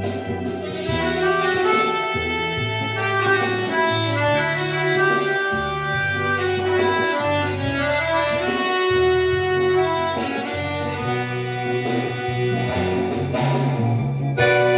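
Accordion playing a piece of music: a melody of held notes over sustained bass notes that change every second or so.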